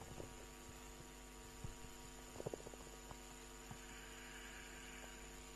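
Faint, steady electrical mains hum with a few soft clicks.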